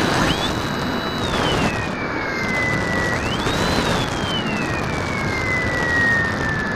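Drifter ultralight's engine and propeller running over a steady rush of wind. The engine whine twice climbs quickly in pitch and then sinks slowly as the revs rise and ease off.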